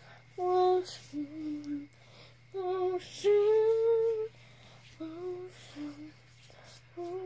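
A young girl singing a short tune to herself in a string of held notes, the longest just past the middle.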